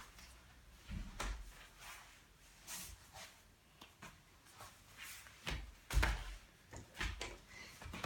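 Scattered soft thumps and rustles of a gymnast's body, hands and feet landing and sliding on a folding foam gym mat, the loudest thud about six seconds in.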